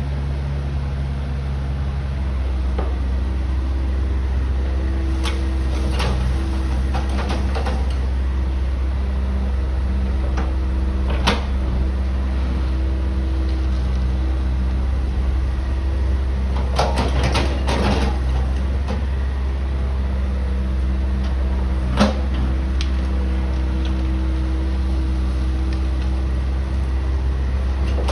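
Backhoe's diesel engine running steadily with a held hydraulic whine, while the bucket works quarried stone: a few sharp clanks and a burst of clattering rock a little past halfway.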